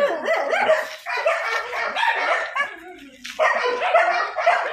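Several dogs barking and yipping over one another, with a short lull about three seconds in.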